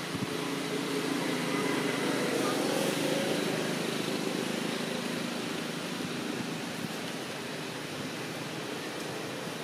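Steady outdoor background drone and hiss with a low hum that builds over the first three seconds, then eases off.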